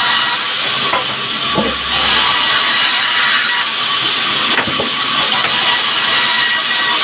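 Sawmill band saw running, a loud steady hiss with a faint high whine.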